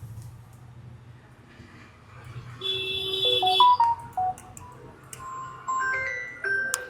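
A phone ringtone: a melody of clean electronic notes stepping up and down in pitch, starting about two and a half seconds in, after a low hum.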